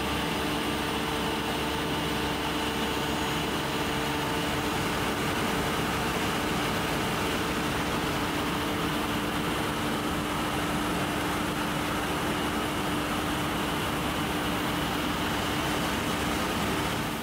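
Steady hum of idle machine-shop machinery: an even hiss carrying several steady tones, with no cutting or impacts.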